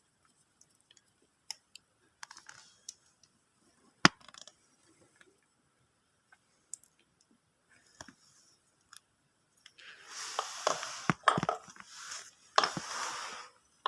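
Small scattered clicks and taps from wires and a plastic connector being handled and fitted, one sharper click about four seconds in. Near the end come two short stretches of scratchy rasping with clicks.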